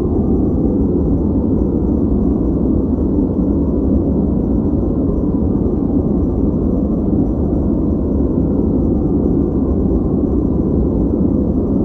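Steady, unchanging noise track played as a white-noise study background, deep and rushing with its weight in the low range and little hiss on top.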